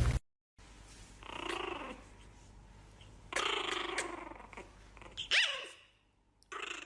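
An animal growling in two bouts of about a second each, then a short, higher cry that bends in pitch a little after five seconds.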